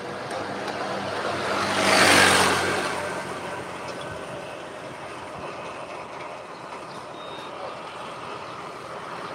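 A motor vehicle passing close by on the road: its engine hum and rush build to a peak about two seconds in, then fade away into low steady street noise.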